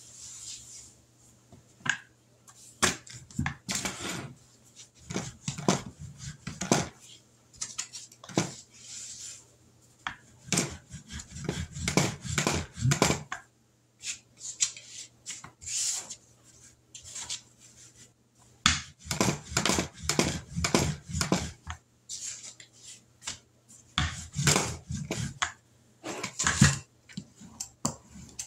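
Rolling pin rolling biscuit dough flat on a floured plastic cutting mat, in runs of repeated strokes, with scattered knocks and clatters as the pin and other utensils are handled and set down on the counter.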